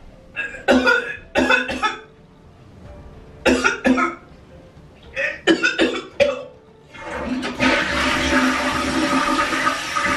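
A woman retching and gagging over a toilet bowl in three short bouts, then a toilet flushing from about seven seconds in.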